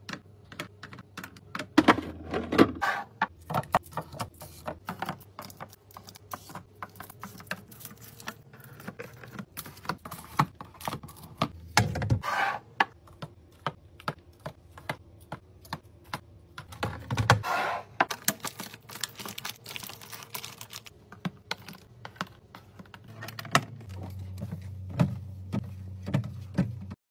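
Rapid, irregular clicks and clacks of containers and packaged items being handled and set down while a fridge is restocked, with a few louder knocks spread through.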